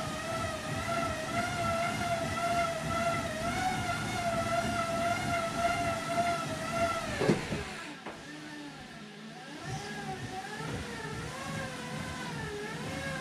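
Cycling rollers spinning under a road bike's tyres: a steady whine over a rumble, its pitch wavering slightly with the pedalling. About seven seconds in the whine drops sharply in pitch and gets quieter. It then carries on lower, rising and falling in pitch with each pedal stroke.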